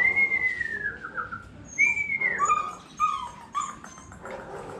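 Phu Quoc Ridgeback puppy whining: a long high falling whine, a second high whine about two seconds in, then three shorter falling whimpers.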